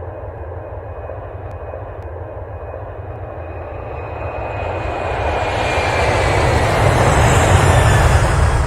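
Jet airliner engines, the rumble and rush growing steadily louder over several seconds, with a thin high whine that slides slightly lower.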